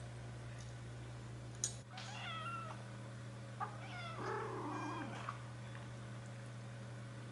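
Four-week-old Birman kittens mewing in short high-pitched calls that bend in pitch, once about two seconds in and again around four to five seconds. A sharp click comes just before the first call, and a steady low hum runs underneath.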